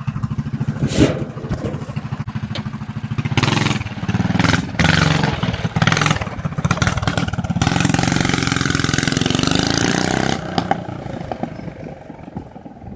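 Coleman CT200U-EX mini bike's small single-cylinder engine running through a homemade header pipe with fresh exhaust wrap, revved up several times. It holds higher revs from about eight to ten seconds in, then drops back toward idle near the end.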